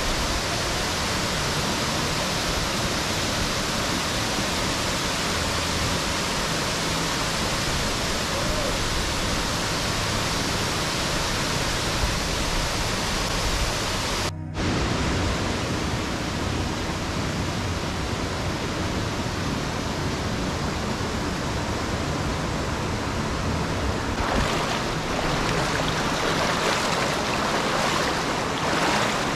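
Waterfall giving a steady rush of falling water, broken by a short gap about halfway. Near the end it gives way to the closer splashing of feet wading through a shallow rocky stream.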